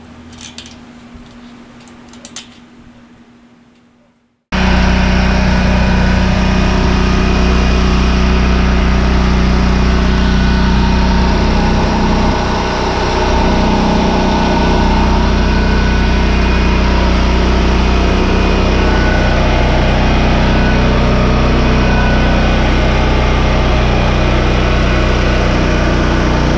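A-iPower AP5000 portable generator's engine running steadily under load, starting abruptly about four and a half seconds in after faint handling clicks and a low hum. It is producing its normal output of about 120 volts at 60 hertz.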